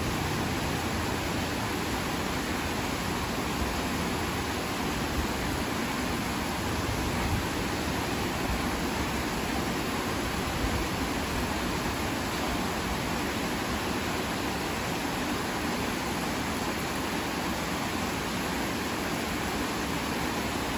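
Heavy rain pouring steadily, an even hiss without changes.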